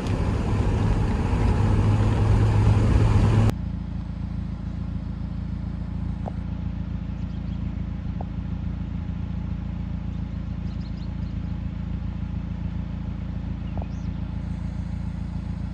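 Mazda Miata's four-cylinder engine and road noise heard from inside the car at cruising speed, a steady drone. About three and a half seconds in the sound cuts abruptly to a quieter, lower steady engine hum with a few faint clicks.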